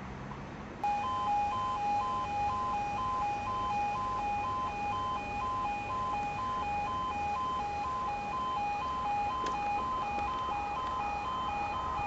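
Railway level crossing warning alarm sounding its two-tone yodel, two pitches alternating about twice a second. It starts abruptly about a second in and signals that a train is approaching and the barriers are about to lower. A single click comes near the end.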